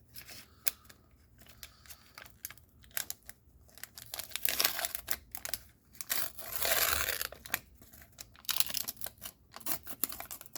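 Paper sticker-pack wrapper crinkling and tearing as it is opened by hand, a run of quick crackles and snaps with one longer rip about two-thirds of the way through.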